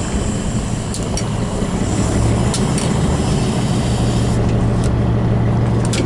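Fishing boat's engine running steadily with a low hum, over wind and water noise.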